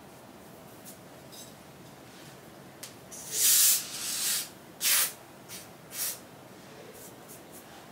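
Got2b aerosol hairspray hissing from the can in short bursts onto a wig cap: one long spray about three seconds in, then a short burst and a few brief puffs.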